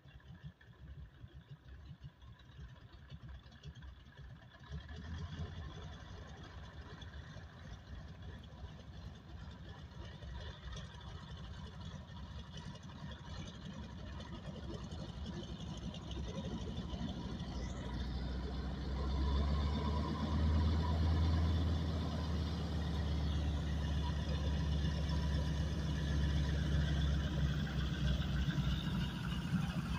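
Boeing PT-17 Stearman biplane's radial engine and propeller running as it taxis, growing steadily louder as it comes closer and loudest over the last ten seconds or so.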